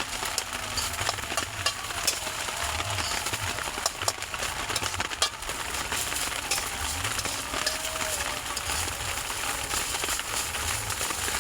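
Fried rice sizzling in a pan over a campfire, a dense crackle of many small ticks over a steady hiss.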